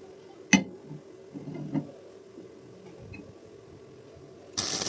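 A sharp metallic click and a few soft knocks, then a short, loud burst of arc-welding crackle that starts near the end, as a weld is struck on iron rods.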